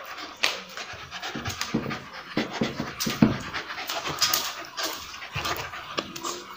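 Dogs panting hard in quick, irregular breaths while play-fighting, with short scuffles and a few sharp knocks mixed in.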